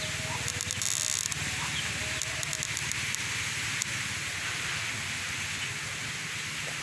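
Rustling and crackling of dry twigs and leaves as kittens clamber about in a tree, over a steady hiss, with a few sharp clicks.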